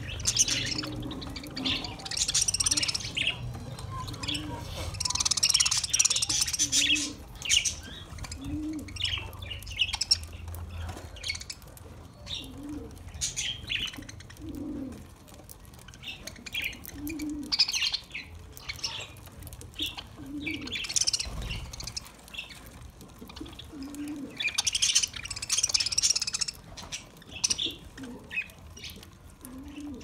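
A flock of budgerigars chattering and chirping, with dense high warbling in bursts that swell and fade every few seconds.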